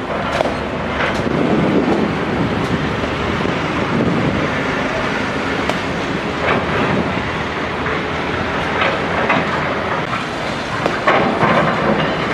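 Doosan hydraulic excavator demolishing a concrete building: a steady rumble with repeated cracks and clatter of breaking concrete and falling debris, which bunch together near the end.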